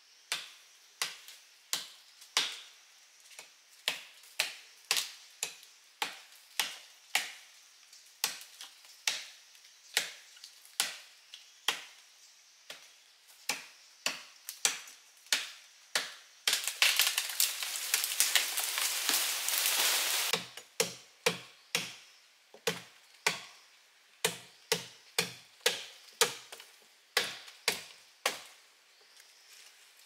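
A blade chopping into tree branches in a steady run of sharp strokes, somewhat more than one a second. Partway through, the strokes give way to a few seconds of dense rustling and crackling of leafy branches, then the chopping resumes.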